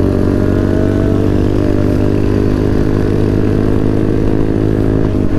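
Motorcycle engine running at steady revs: an even drone that holds one pitch throughout.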